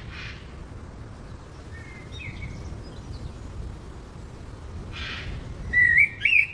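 Outdoor ambience with a steady low rumble and two short hissing bursts. A bird chirps faintly a couple of seconds in, and near the end sings loud whistled phrases that slide up and down.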